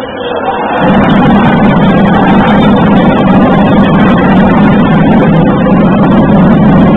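Arena crowd cheering loudly during basketball play, a dense roar that swells about a second in and stays up.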